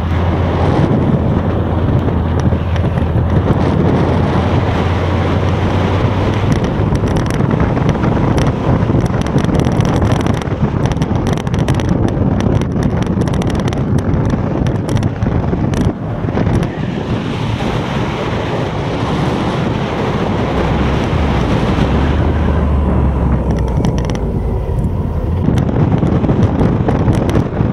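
Wind rushing over the camera microphone on a moving motorcycle, with the engine's low hum underneath, clearer at the start and again near the end.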